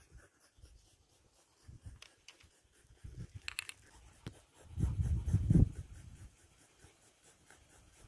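Faint scuffs and rustles of footsteps on a dry trail of leaf litter and grit, with handling noise from the phone on its pole, which gives low rumbles about three seconds in and again around five seconds in.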